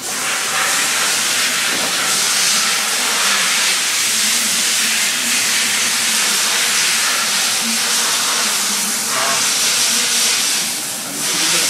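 A loud, steady hiss, like gas or liquid rushing under pressure, with brief dips about nine seconds in and again near the end.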